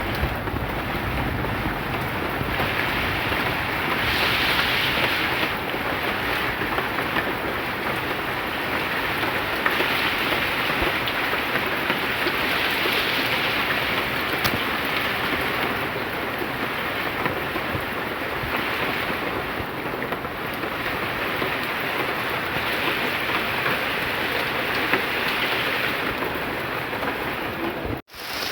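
Steady heavy rain falling, its hiss swelling and easing every few seconds. The sound drops out for an instant near the end.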